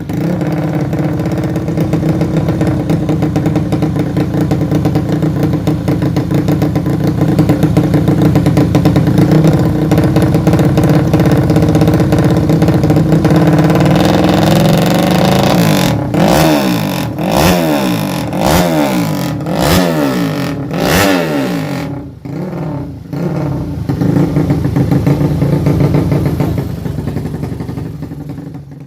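200cc motorcycle with an MP2 aftermarket exhaust running at a steady fast idle, then revved in a series of short blips past the halfway point, the pitch rising and falling with each one.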